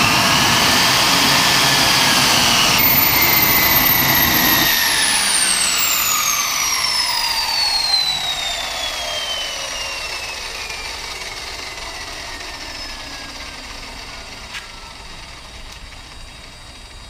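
Wren 44 model turboprop engine running at low throttle, then shut down about three seconds in: the low rumble drops away and the turbine whine falls steadily in pitch and fades as the engine and propeller spool down.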